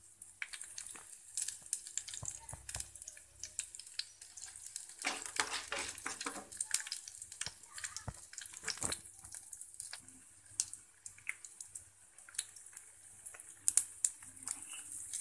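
Mustard seeds, dals and dried red chillies crackling and sizzling in hot oil in a steel pan, stirred with a wooden spatula: irregular pops and clicks over a hiss, busiest about five to seven seconds in.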